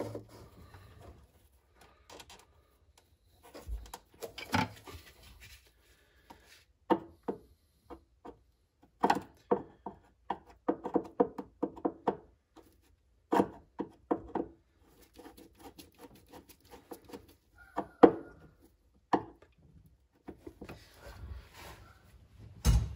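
Screwdriver worked against the screws of a brass terminal strip, a little too big for them: a run of irregular short metal clicks, scrapes and knocks, with a sharper knock about 18 s in and a dull thump near the end.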